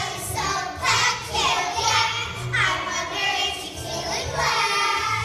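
A cast of children singing a show tune together over musical accompaniment.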